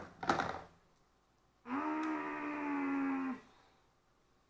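A single steady held vocal note, like a hum, starting about a second and a half in and lasting under two seconds.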